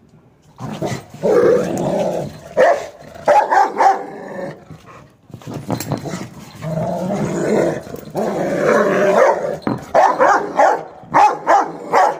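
Rottweiler on a leash growling and barking: long growls broken by short, sharp barks, with a quick run of barks near the end. It is the agitation the dog shows when tied.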